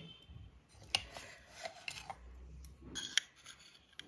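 A metal spoon clinking and scraping against a small glass bowl as thick set sweet yogurt is scooped into it: a few sharp clinks, the clearest about a second in and around three seconds, with soft scraping between.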